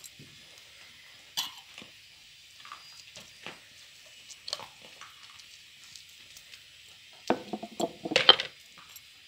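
Wooden rolling pin working dough on a wooden board: scattered soft taps and knocks, then a louder run of knocks and rattling about seven to eight and a half seconds in.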